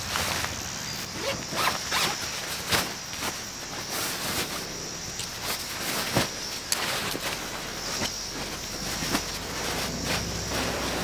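Zipper of a Kazmi Ventus tent's nylon carry bag being worked open, with the bag's fabric rustling and scattered sharp crackles as it is pulled apart.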